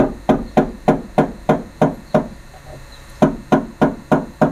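Regular sharp knocks, like tapping with a hammer on metal, about three a second, pausing for about a second after two seconds in and then going on.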